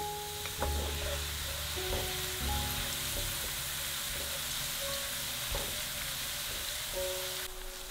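Sliced and minced garlic frying in olive oil in a pan on low heat, a steady fine sizzle throughout. Soft background music notes play underneath.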